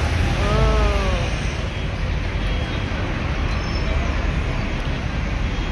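Steady city traffic noise with a heavy low rumble. About half a second in, a brief pitched call falls in pitch and fades within a second.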